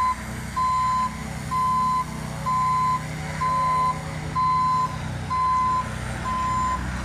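Reversing alarm of a JCB ride-on tandem roller beeping in a steady rhythm, about one half-second beep a second, over the roller's engine running steadily as it compacts the slag surface.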